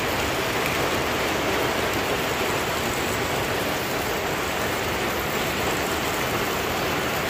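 Steady rain falling on plants and wet ground, an even, unbroken hiss.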